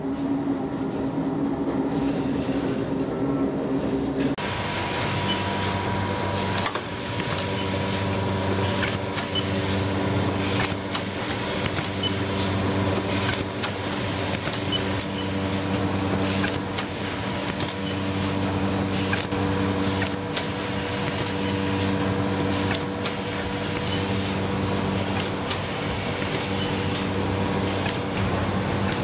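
Carton-making machinery running in a cardboard box factory: a steady machine hum with repeated clacks from the sheet feeder and slotting rollers. About four seconds in the sound changes abruptly to a louder, fuller din with a held tone and bursts of high hiss.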